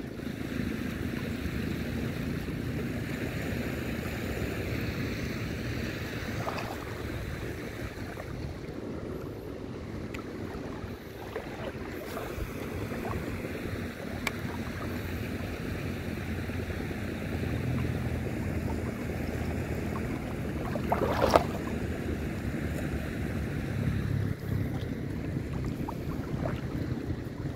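Wind on the microphone over small sea waves lapping at the shore, a steady rushing noise, with one sharp knock about three quarters of the way through.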